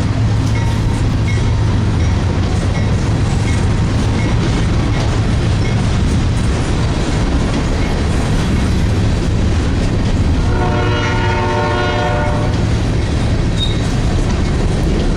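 Train rolling past with a steady rumble of wheels on rail. A locomotive air horn sounds about ten seconds in for around two seconds, and starts again at the very end.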